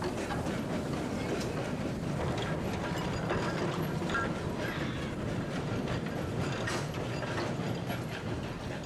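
Double-deck tram trailers hauled by a steam tram locomotive rolling past on street rails: a steady noise of iron wheels running on the track.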